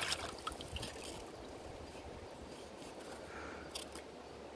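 Steady low rushing noise of a riverside, with a few faint short clicks and knocks.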